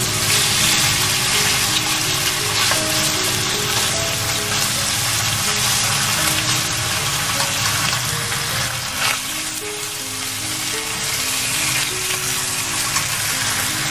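Bacon slices sizzling in hot oil in a frying pan as they are spread and turned with chopsticks. Soft background music plays underneath.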